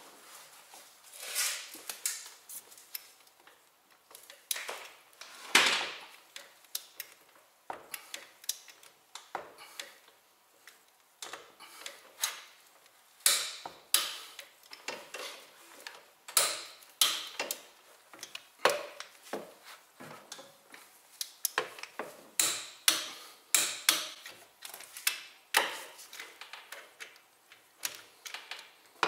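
Irregular sharp metal clinks and knocks of hand tools and parts being handled, some louder than others, with short quiet gaps between them.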